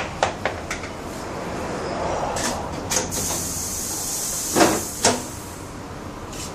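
Tyre-changing work sounds: a few light clicks and clanks, then a steady hiss from about three seconds in, with two heavier knocks near the end of the hiss.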